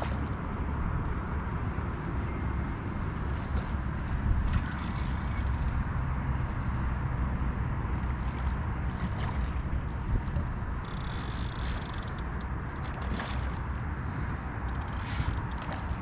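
Wind rumbling on the microphone, with a few short rustling hisses.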